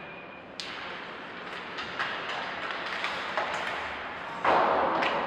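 Ice hockey rink sounds: scattered sharp knocks of puck and sticks over a steady background hum of the arena, with a louder burst of noise about four and a half seconds in.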